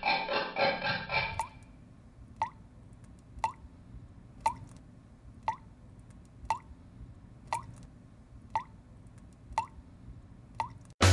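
Water dripping from a tap, single drops about once a second, each a short plop. Music ends about a second and a half in, and loud jazz-style music starts right at the end.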